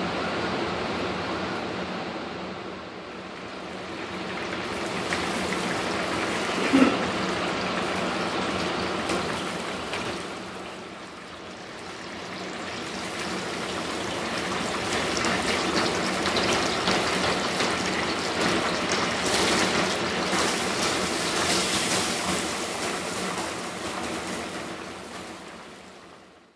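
Breaded pork cutlets deep-frying in canola oil, a steady sizzling and bubbling that swells and eases, with one sharp knock about seven seconds in. The sound fades out at the end.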